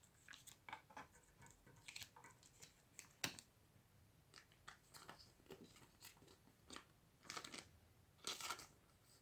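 Faint scattered clicks and short rustles of trading cards being handled and slid through a freshly opened pack, with one sharper tick about three seconds in and a couple of brief rustles near the end.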